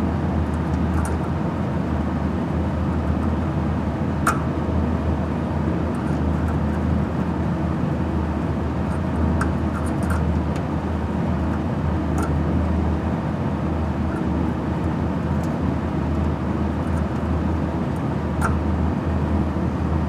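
Steady low hum and rumble of running machinery, with a few faint metallic ticks as a small drill bit is worked by hand inside a corroded copper fitting.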